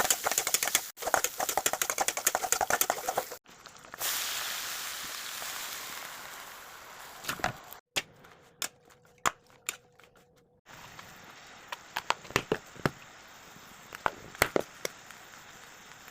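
Kitchen cooking sounds in short cut-together clips: dense crackling for about three seconds, then a steady hiss that slowly fades, then scattered sharp knocks and taps.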